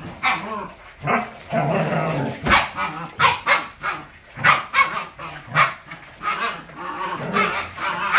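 Siberian huskies, adult females and a two-month-old puppy, barking and yipping in many short, repeated calls as they scuffle, the adults scolding an unruly pup that fights back.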